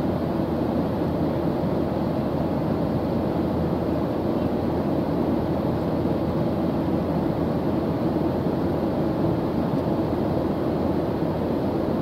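Jet airliner cabin noise in cruise flight: a steady, even low rumble and rush of engines and airflow, with no changes.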